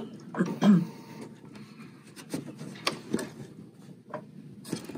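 BERNINA sewing machine stitching slowly in stop-start runs, its needle mechanism clicking irregularly over a faint motor hum.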